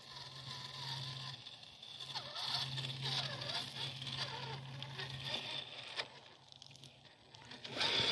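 Redcat Gen 8 RC crawler's 5-slot 16-turn Team Brood Pathfinder brushed motor and drivetrain whirring at crawl speed, the whine rising and falling with the throttle and briefly dropping out twice. The freshly fitted motor runs without any bushing whine. It gets louder near the end as the truck comes close.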